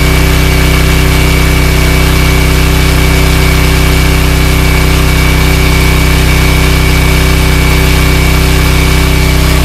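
ETQ portable diesel generator's single-cylinder engine running steadily, noisy, with a thin steady whine over its low drone. Its crankcase has just been filled right to the top with oil, which the owner finds makes it sound less mechanical.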